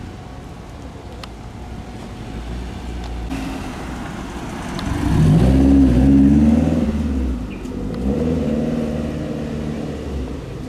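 Lancia Delta HF Integrale's turbocharged four-cylinder engine revving as the car pulls away and accelerates past, loudest about halfway through, then a second, shorter rise in revs as it drives off.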